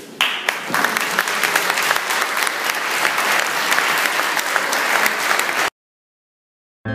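A roomful of people clapping, breaking out just after the start and cut off abruptly about two thirds of the way through. A second of dead silence follows, then acoustic guitar music starts right at the end.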